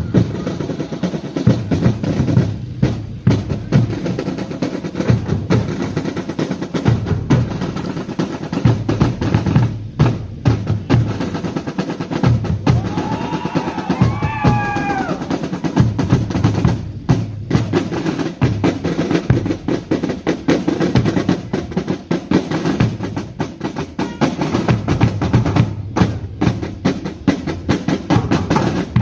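Pipe band drum corps playing: snare drums rattling and rolling over a steady beat from tenor and bass drums, with a few short breaks in the rhythm.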